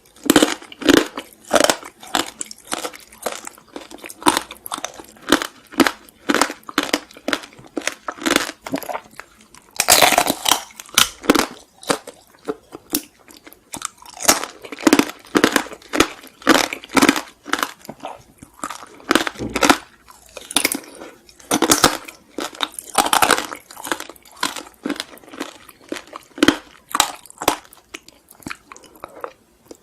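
Someone biting and chewing crunchy Korean sweets: a steady run of sharp crunches, two or three a second, loudest about a third of the way through.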